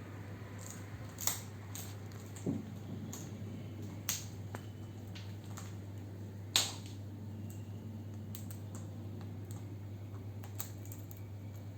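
Scattered sharp clicks and taps of hard objects being handled, a handful of them over several seconds with the loudest a little past halfway, over a steady low hum.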